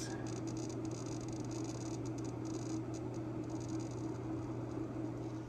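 Synology RS1221+ rack-mount NAS running: a steady whir of its cooling fans with a constant low hum from its spinning Seagate IronWolf Pro hard drives, and a faint patter of the drive heads seeking as the drives are accessed.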